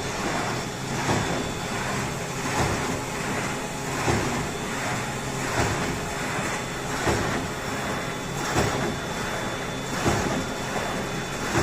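Paper straw making machine running, a steady mechanical noise with a louder stroke about every one and a half seconds in an even cycle.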